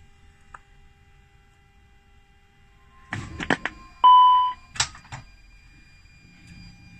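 A cluster of sharp clicks, then a single loud electronic beep of about half a second, then two more clicks in an Airbus A320-family cockpit. They come as the APU reaches full speed, shows available and its generator takes the electrical load.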